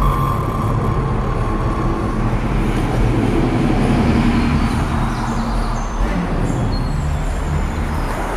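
A loud, steady low rumble that goes on without a break, with faint brief tones above it.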